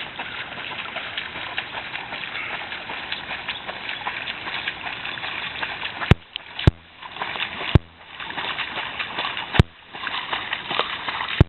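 A dog swimming and splashing in pond water as it paddles back with a fetched ball, a steady sloshing haze. It is broken by a few sharp clicks in the second half.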